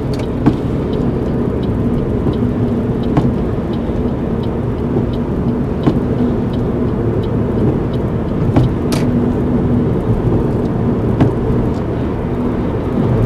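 Steady engine and tyre-on-tarmac road noise heard inside a car's cabin as it drives at speed on a dual carriageway, a low, even rumble with a faint steady hum.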